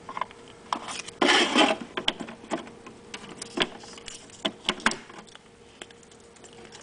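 Handling noise: irregular clicks and knocks from small plastic toys and the camera being moved about, with a brief rustle a little over a second in.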